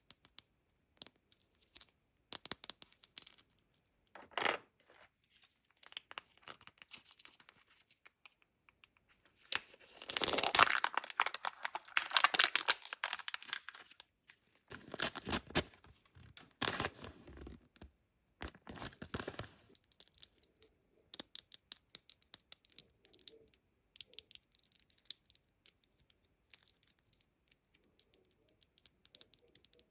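Kinder Joy egg wrappers and small plastic toy packets being torn open and crinkled by hand. Scattered small crackles run throughout, with longer, louder stretches of tearing and crinkling near the middle.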